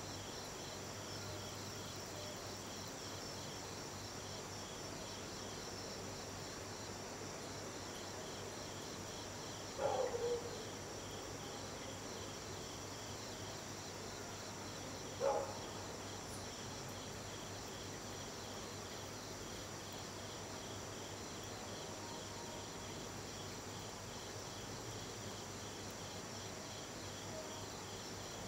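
Night insects such as crickets chirring steadily, a high, pulsing chorus. Two short, louder calls fall in pitch about ten and fifteen seconds in.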